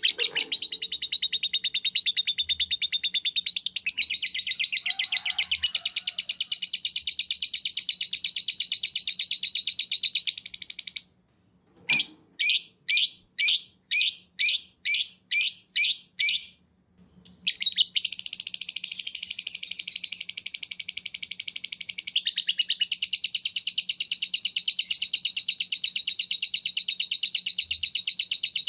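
Canary and lovebird song: a fast, unbroken trill of high chirps. About eleven seconds in it stops abruptly and gives way to a string of about nine separate downward-sweeping whistles, roughly two a second. After that the rapid trill starts again and runs on.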